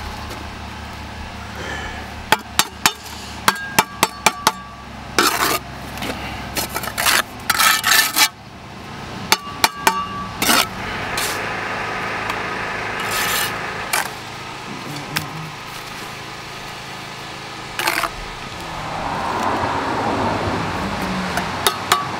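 Bricklaying work on a concrete block wall: a steel trowel repeatedly tapping and knocking on the blocks, with several longer stretches of scraping as mortar is spread and cut off the joints.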